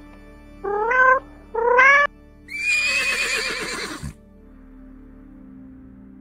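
A cat meowing twice, two short calls rising in pitch about one and two seconds in, then a horse whinnying for about a second and a half, high and wavering and dropping low at the end. Soft background music underneath.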